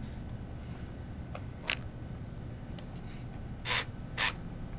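Small electric motor and plastic gears of a student-built wooden robot running with a low steady whir as its wooden cage arm swings over a wooden ball. There is a click about a second and a half in and two short rubbing scrapes near the end.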